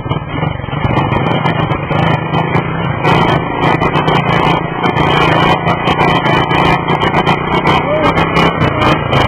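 Motor vehicle engine running steadily, with a continuous low hum and frequent rattles and knocks over it.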